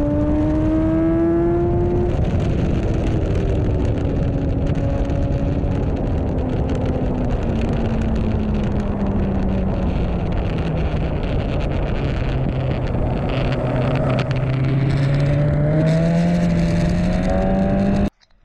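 BMW S1000RR inline-four sport-bike engine heard from an onboard camera, with heavy wind rush on the microphone. The engine note climbs briefly, then falls slowly for about twelve seconds, then rises again before cutting off suddenly near the end.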